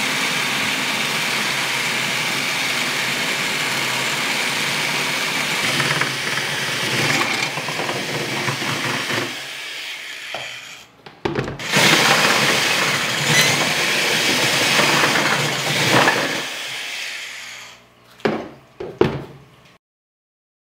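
Old corded electric drill with a 5/8-inch twist bit boring through a refrigerator's sheet-metal side, foam insulation and plastic liner. The motor runs steadily with a high whine for about nine seconds, stops, runs again for about five seconds, then gives two short bursts near the end before stopping.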